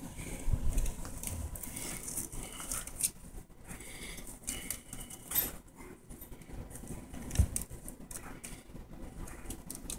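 A kitten scrabbling and pouncing on a sock in a wicker basket: irregular rustling and scratching of claws on cloth and wicker, with soft thumps, the loudest about seven seconds in.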